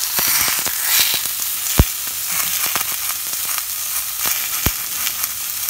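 Two rib eye steaks sizzling in a hot stainless steel frying pan: a steady hiss with spattering crackles, and two sharp pops, one about two seconds in and one near the end.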